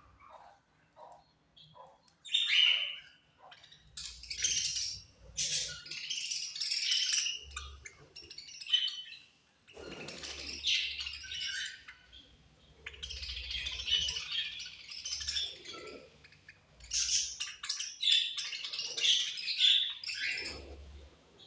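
A group of budgerigars chirping and chattering in bursts of several seconds, with short quieter gaps between them.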